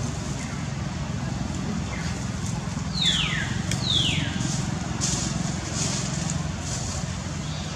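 Two short high animal calls, each falling steeply in pitch, about a second apart a little past the middle, over a steady low outdoor rumble.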